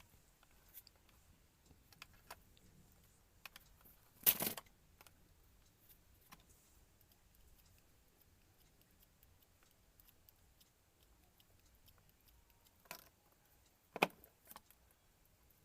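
Faint scattered clicks and handling noise of a printer cable's stiff plastic jacket being cut and peeled off by hand, with two louder short rasps, about four seconds in and near the end.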